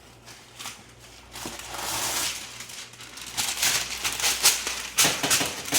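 Pre-cut parchment paper rustling and crinkling as it is handled and laid out, with a run of short sharp taps near the end.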